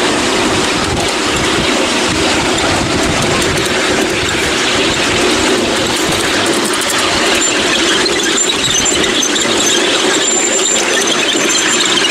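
Ride-on miniature railway train running along the track: a steady rumble and rattle of wheels on rails, with a high squeal coming and going in the second half. Wind buffets the microphone.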